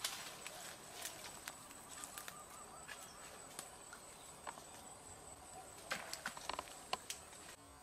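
Faint rustling and scattered light clicks of movement through dense undergrowth, with a quick cluster of sharper clicks about six seconds in, over a faint steady high whine.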